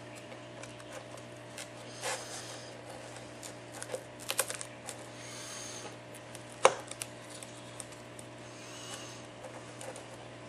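Light clicks and taps of a prying tool on the cracked glass of an iPad 4 as the digitizer is worked loose around its edge. The clicks are scattered, with a small cluster about four seconds in and one sharper click a little past six seconds, over a faint steady hum.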